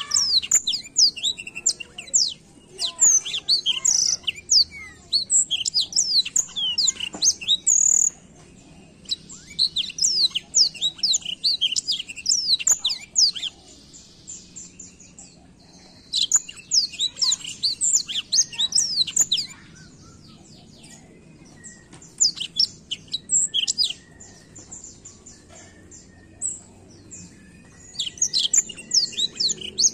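A blackthroat (black-throated canary) in full song: bursts of rapid, high twittering made of quick downward-sweeping notes, in phrases of a few seconds broken by short pauses.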